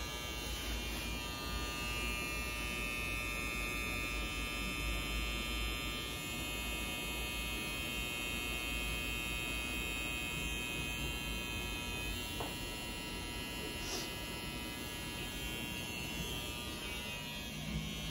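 Electric hair clippers running with a steady buzzing hum.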